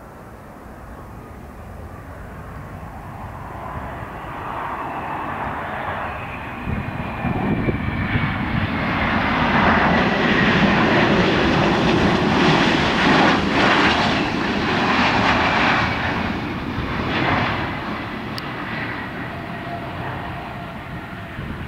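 McDonnell Douglas MD-90 jet airliner passing on its landing, the noise of its IAE V2500 turbofan engines growing steadily louder to a peak about halfway through and then easing off. A high whine falls slowly in pitch as the plane goes by.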